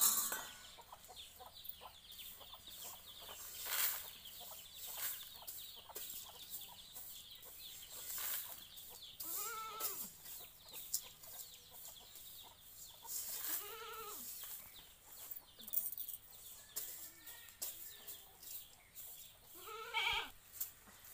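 Corn kernels popping and crackling in hot sand in a wok as a bundle of thin sticks stirs and scrapes them. Three short farm-animal calls come through about 9, 13 and 20 seconds in.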